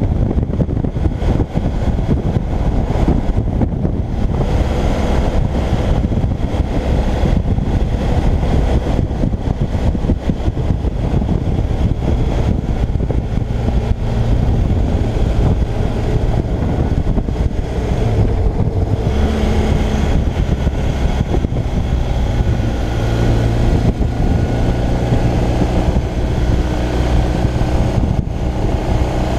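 Motorcycle being ridden at road speed: a continuous rush of wind noise over the engine's steady drone. From a little past halfway, the engine note comes through more clearly and shifts in pitch with the throttle through the curves.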